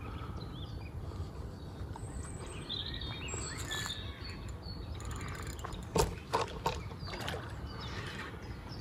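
Small birds chirping over a steady low rumble, with three short, sharp splashes about six seconds in: a hooked wels catfish slapping the surface as it is played.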